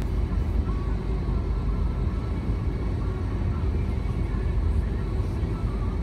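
Steady low rumble of a car engine idling, heard from inside the cabin.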